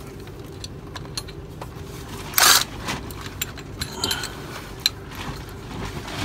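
Light metallic clicks and clinks of a socket and bolt being worked loose from an engine's rocker gear. One brief, louder rattle comes about two and a half seconds in.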